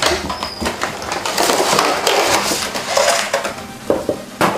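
Cardboard box and plastic packaging being handled and opened: crinkly rustling and scraping, with a few sharp clicks near the end.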